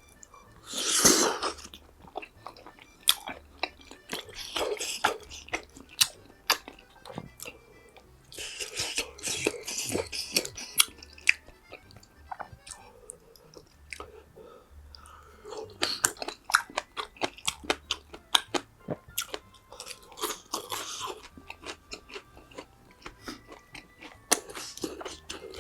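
Close-miked eating: a person biting and chewing crunchy food, with a loud crunch about a second in and several more bursts of crunching spread through, between many small wet mouth clicks.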